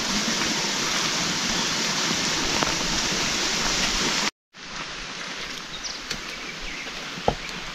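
Steady rain falling. It cuts out abruptly a little past halfway and comes back quieter, with a few light ticks and a sharper tick near the end.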